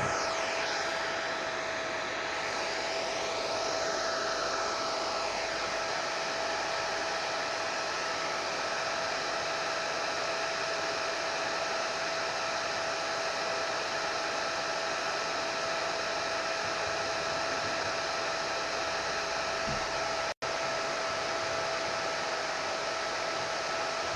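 Hair dryer running steadily: a continuous airy rush with a steady whine, with a split-second dropout about twenty seconds in.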